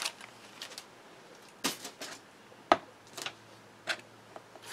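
Craft supplies being handled and put down on a cutting mat: a handful of light, separate clicks and knocks, among them a small jar set down on the mat.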